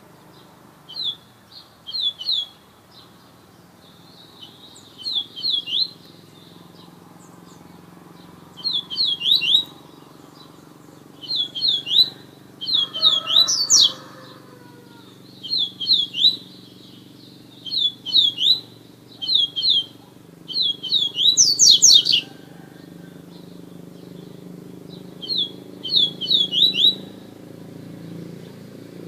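A caged songbird singing short phrases of three or four quick, high, downward-slurred notes, repeated every two to three seconds over a faint steady low hum.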